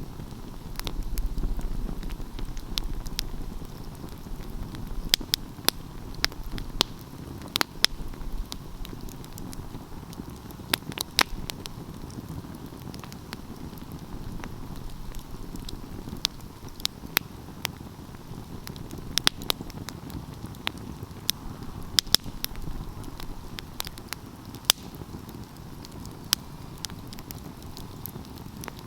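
Open wood fire burning: a steady low rush of flame under irregular sharp crackles and pops, some much louder than the rest.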